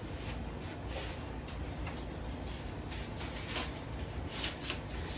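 A spoon mixing seasoned raw turkey pieces with oil in a bowl: a run of irregular scrapes and clicks.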